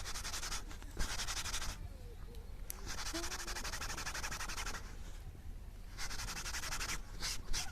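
Four rasping, scraping strokes of uneven length, the third and longest lasting over a second, with short sharp scrapes near the end.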